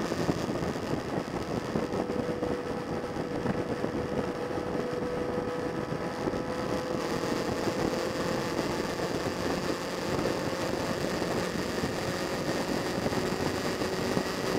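Engine of a vehicle cruising at steady highway speed, holding an even note, over a constant rush of wind and road noise.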